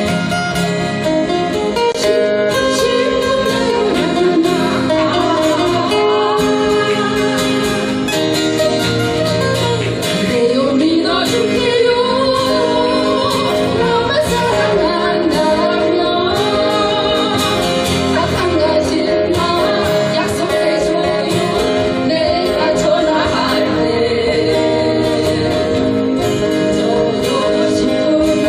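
Live band music led by guitars, with a lead voice singing the melody from about four seconds in over a steady accompaniment.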